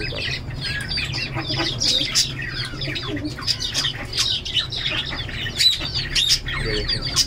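Many small cage birds chirping and squawking together in an aviary, a dense, unbroken chatter of short, high calls.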